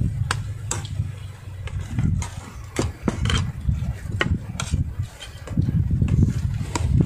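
Spoons and forks clinking and tapping on plates during a meal: about ten sharp, scattered taps over a low rumble.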